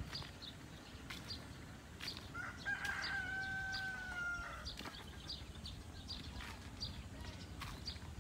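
A rooster crowing once, a long held call from about two seconds in to about four and a half seconds in, over faint short high chirps and occasional knocks.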